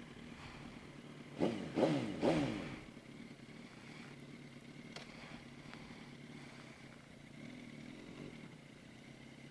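Yamaha R1 inline-four engine idling, blipped three times in quick succession about a second and a half in, each rev rising and falling back to a steady idle.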